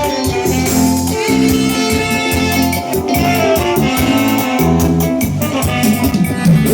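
Live band playing an instrumental passage with no singing: sustained melody notes over a steady bass line and evenly repeating percussion.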